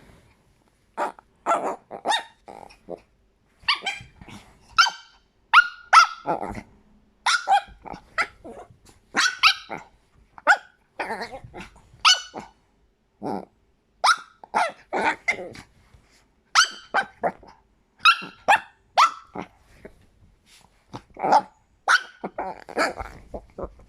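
Chihuahua barking in many short, high-pitched yaps that come in irregular runs, with some growling mixed in.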